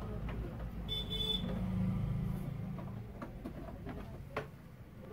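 Steady low electrical hum that swells for a few seconds and then eases, with a short high beep about a second in and a few light clicks.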